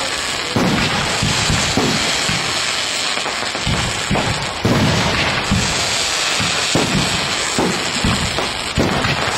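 Aerial fireworks display: a rapid, overlapping series of shell bursts and booms over a continuous hiss.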